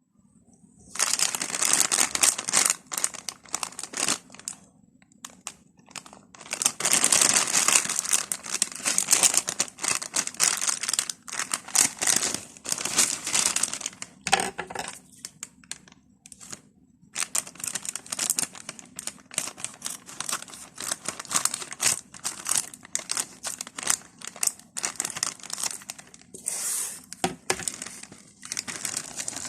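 Plastic wrapper of a Munch chocolate wafer bar crinkling and tearing as it is handled and opened, in irregular bouts with short pauses.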